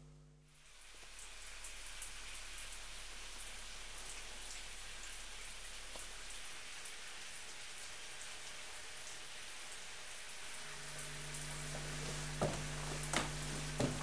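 Shower water spraying steadily, fading in just under a second in. Near the end a low hum comes in under it, with a few sharp clicks.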